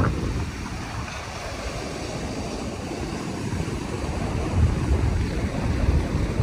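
Wind buffeting the microphone over the wash of surf breaking out on a shallow coral reef shelf; the gusts pick up near the end.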